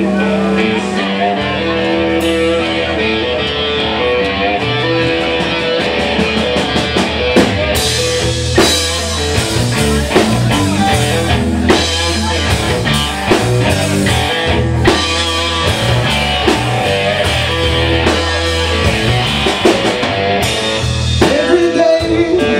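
Live blues-rock band playing: electric guitar over bass guitar and a drum kit, with singing.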